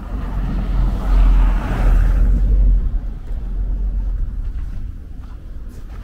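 A car driving past, its engine and tyre noise swelling about a second in and fading away after about three seconds.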